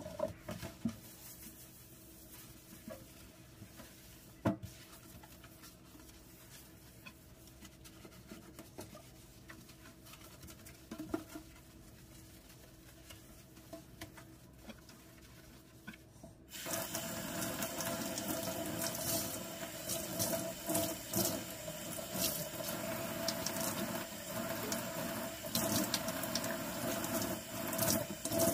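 Faint sponge scrubbing with a few soft knocks on a stainless steel sink. A little past halfway, the kitchen tap comes on suddenly and water runs steadily, splashing into the steel sink.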